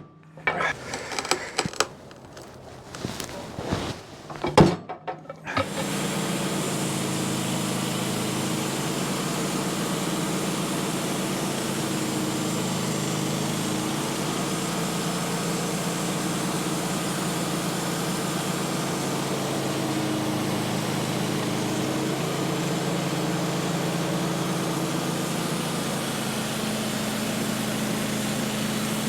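A few irregular knocks and clatters, then about six seconds in the sawmill's gasoline engine starts and runs at a steady speed.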